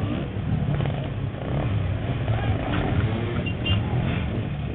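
Motor vehicle engine running steadily at low revs, with crowd voices in the background.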